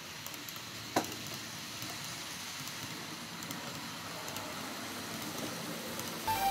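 N-scale model train rolling past on the layout track: a steady, quiet hiss scattered with small ticks and crackles, with one sharp click about a second in. Music begins right at the end.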